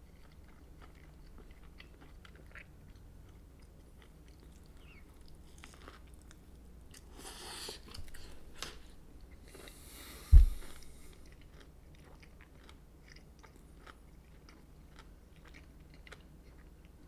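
A person chewing a mouthful of crispy fried chicken sandwich close to the microphone, with small crunches and mouth clicks throughout. A single sharp low thump about ten seconds in is the loudest sound.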